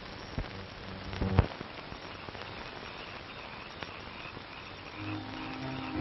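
Steady hiss and crackle of an old film soundtrack, with a few sharp clicks and one loud pop about a second and a half in. Soft music with held notes comes in near the end.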